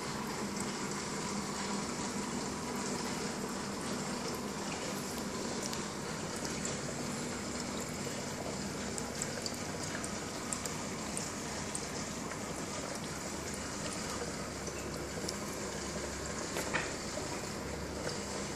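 Aquarium water circulation: a steady wash of moving water with a faint hum, dotted with small ticks and one sharper tick near the end.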